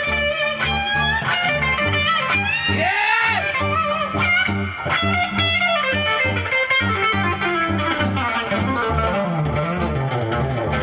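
Live band playing an instrumental passage: an electric guitar lead with bent notes over a repeating bass line and drums.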